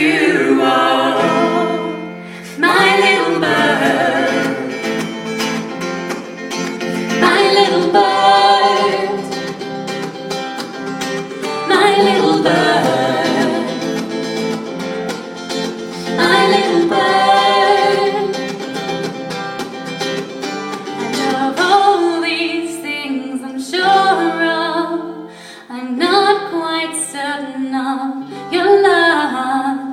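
Live singing with guitar accompaniment, the voices moving in phrases with short breaks, about 2 seconds in and again in the last third.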